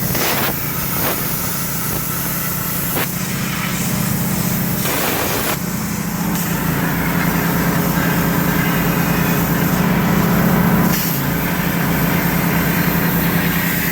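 Plasma cutter cutting slots in black steel gas pipe: a steady hiss over a constant low machine hum, broken by a few short clicks.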